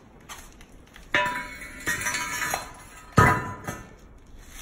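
A metal framing square and a long metal level knocked down onto a concrete floor, clanking and ringing: three knocks, the loudest about three seconds in.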